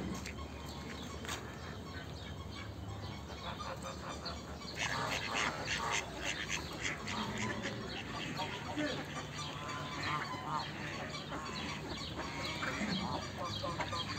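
Waterfowl calling repeatedly around a pond, in short rapid clusters that grow loudest about five seconds in and keep recurring.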